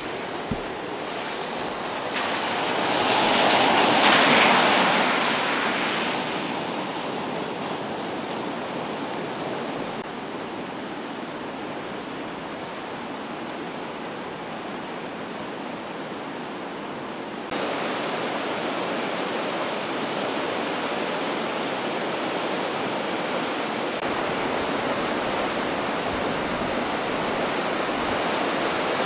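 Floodwater rushing in a swollen, fast-flowing creek: a steady roar of churning water, swelling louder for a few seconds near the start, its tone shifting abruptly twice.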